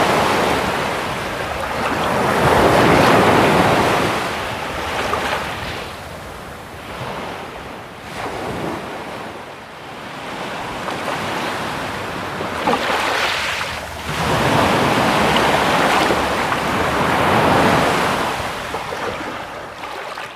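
Sea waves breaking and washing in, the surf swelling and fading in long surges every few seconds, with wind rumbling on the microphone.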